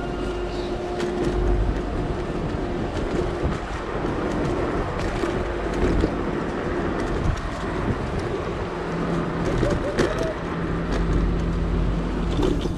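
Rumbling road and wind noise from riding a Sherman electric unicycle along city streets, with a faint steady hum for much of it and a few short knocks.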